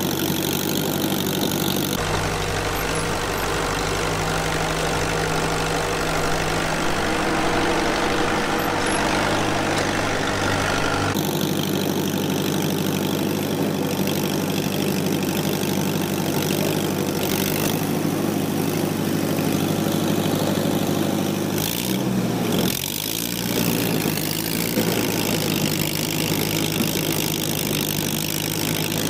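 Fiat 352C Montagna crawler tractor's four-cylinder 1900 cc diesel engine running steadily as the tractor is driven. About three-quarters of the way through, the engine speed briefly drops and picks back up.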